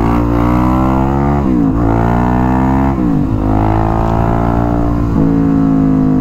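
Suzuki DR-Z400SM's single-cylinder four-stroke engine pulling on the road. The engine pitch drops sharply and climbs again about a second and a half in and about three seconds in, then runs steady near the end.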